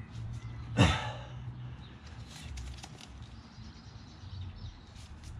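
A short, loud breath out through the nose about a second in, then faint clicks and scrapes from a metal pick working a retaining clip onto the clutch release bearing in the gearbox bellhousing.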